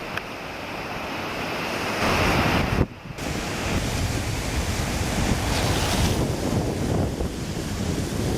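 The River Cree in flood: high, fast river water rushing steadily, with wind buffeting the microphone. The sound drops away briefly about three seconds in, then carries on.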